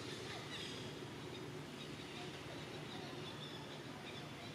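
Steady outdoor background noise, a low rumble and hiss, with faint short high-pitched chirps scattered through it.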